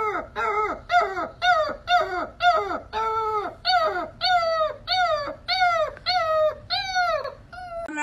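Hound puppy baying: a quick run of short, pitched howls, about two a second, each dropping in pitch at its end.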